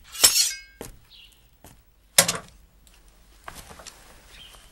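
Impact sounds: a loud crash with a short metallic ring, then a single sharp knock about two seconds later.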